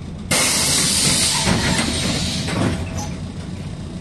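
Sudden loud hiss of compressed air vented from the MAZ-105 bus's pneumatic system, starting about a third of a second in and fading after nearly three seconds, over the steady low running of the bus.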